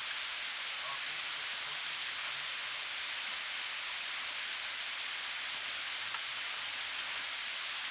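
Steady rainfall, an even hiss with a few faint sharper drop taps about six and seven seconds in.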